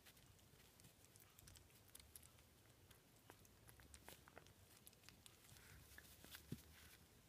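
A puppy gnawing and chewing a dental chew stick: faint, irregular clicks and crunches of teeth on the stick, with one sharper knock near the end.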